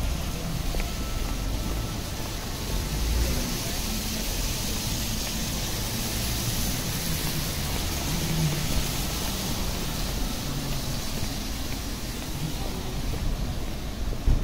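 City street ambience: a steady wash of traffic noise with a low rumble and a hiss that is stronger for several seconds in the middle, with indistinct voices.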